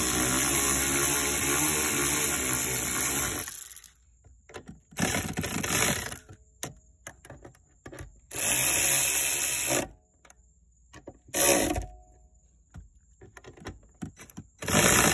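12V cordless ratchet running bolts down on a Toyota Camry's short-shifter assembly. One long run of about three and a half seconds, then three or four shorter bursts with pauses between.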